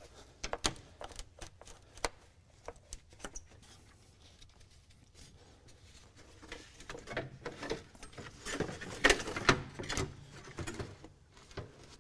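Scattered clicks and knocks of hands working at a car's radiator and its hose. In the second half comes a denser run of rustling and clunks, loudest about nine seconds in, as the old radiator is worked loose and lifted out of the engine bay.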